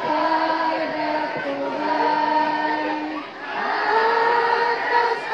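School choir of boys and girls singing together, holding long notes. About three seconds in the singing briefly drops away, then comes back on a higher held note.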